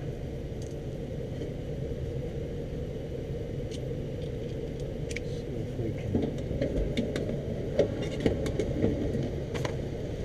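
A steady low mechanical rumble with a hum in it, and scattered light clicks and taps from about four seconds in as hands work at the opened furnace cabinet.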